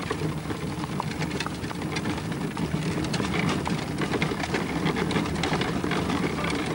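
Horse-drawn carriage on the move: a steady rolling rumble of the wheels on the paved street, with the irregular clatter of the horse's hooves at a trot.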